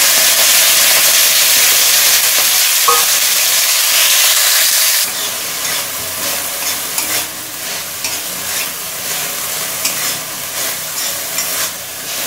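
Marinated chicken pieces sizzling hard in hot vegetable oil in a metal kadai. From about five seconds in the sizzle is quieter, and a metal spatula scrapes and clicks against the pan as the pieces are stirred.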